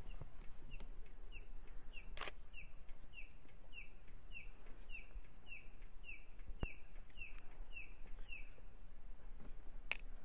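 A bird calling in a steady series of short descending chirps, a little over two a second, that stops near the end, over a low steady rumble, with a few sharp clicks.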